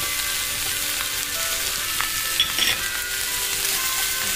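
Coconut pieces, cashews and almonds sizzling in masala in a non-stick frying pan as they are stirred in with a silicone spatula, with a few sharp clicks about halfway through.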